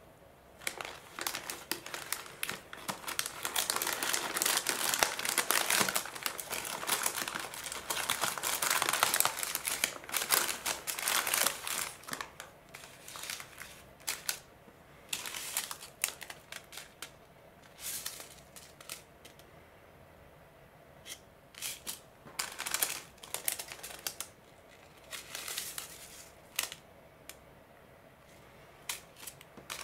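Small plastic furikake sachets and their box crinkling as they are handled: dense, continuous crinkling for about the first twelve seconds, then short separate rustles as single packets are picked up and turned over.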